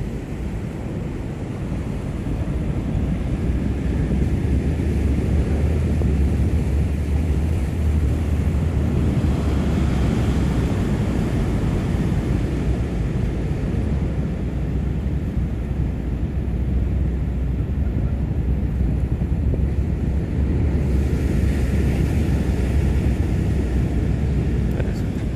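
Wind buffeting the microphone in a steady low rumble, over the wash of Pacific Ocean surf breaking below the pier, swelling twice.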